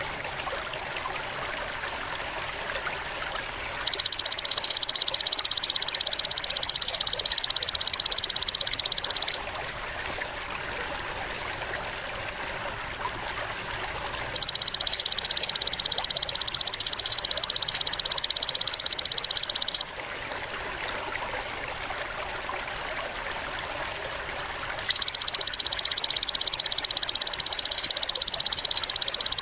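Belalang emas (golden grasshopper) insect trilling: three loud, even, high-pitched buzzing trills of about five and a half seconds each, about five seconds apart, over a fainter steady hiss like trickling water.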